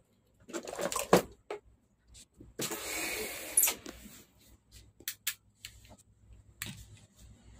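Handling noise from working on a flat-screen TV's sheet-metal back chassis: a few sharp clicks and knocks, a scraping rustle lasting about a second roughly three seconds in, then scattered single clicks.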